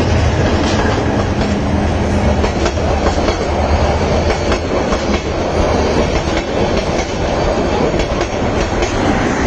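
Passenger train passing close by at speed, its wheels clattering over the rail joints in a loud, steady rumble with rapid clicks.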